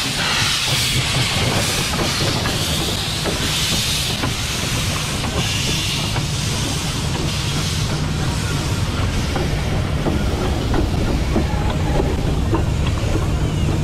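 Steam train running: a steady low rumble and hiss with scattered clicks of wheels over the rails.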